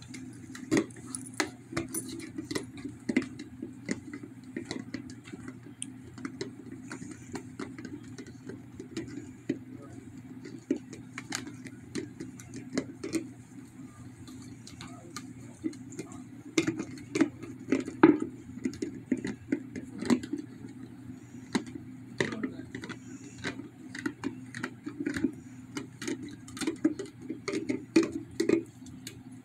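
A dog working at an empty plastic peanut butter jar with its teeth and tongue: irregular clicks, taps and knocks of the plastic jar, in quick clusters, heaviest in the second half.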